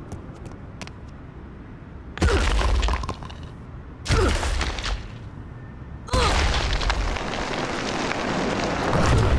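Heavy booming impacts with cracking, crumbling concrete: two stomps about two seconds apart, each with a short crash. Then a longer rumbling crash of a floor caving in with falling debris, building toward the end.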